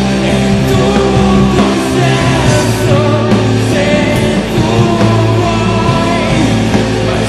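Rock band recording playing: guitars, bass and drums at a steady, loud level.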